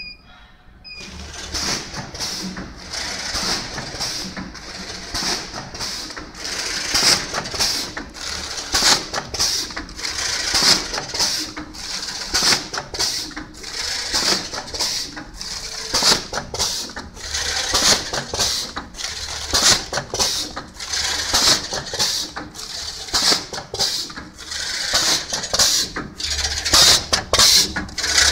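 Short electronic beeps as the touchscreen is pressed, then from about a second in an automatic vertical bagging machine starts running: a continuous, busy clatter of sharp mechanical clicks and pneumatic hisses as it forms, fills and seals bags.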